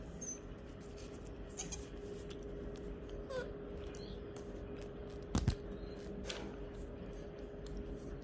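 Puppy whining in short, faint whimpers, one falling in pitch, over scattered light clicks. A sharp knock comes about five and a half seconds in.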